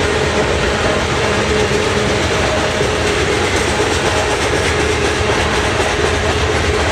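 CN freight train cars rolling past close by: a loud, steady noise of steel wheels running on the rails, with faint steady tones running through it.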